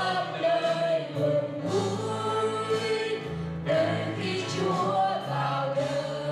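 Small vocal group of two women and a man singing a Christmas hymn into microphones, with instrumental accompaniment holding bass notes that change every second or so.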